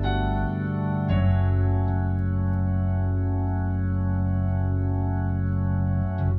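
Organ playing full sustained chords in F# minor gospel style, moving to a new chord about a second in. The chord is then held with a slow, regular wobble.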